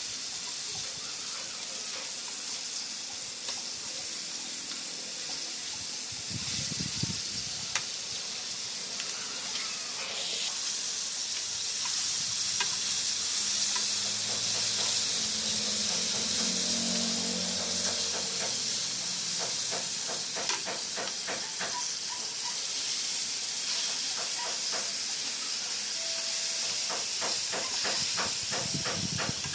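Battered chicken pieces sizzling steadily as they fry in hot oil in a carbon-steel wok, with a few light clicks of metal tongs in the second half.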